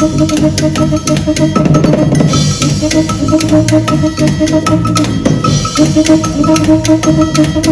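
Live band music: a steady drum beat with a repeating pattern of pitched percussion notes over a bass line.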